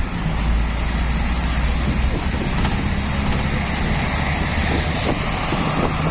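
Steady traffic noise from cars on a busy highway, with a low rumble and wind buffeting the phone's microphone.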